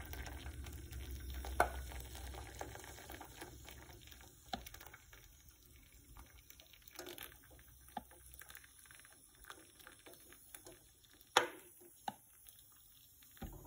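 Hot water from an electric kettle pouring in a thin stream into a stainless steel saucepan of quail eggs: a soft, quiet pour that fades after the first few seconds. A few light clicks come through it, the clearest near the start and near the end.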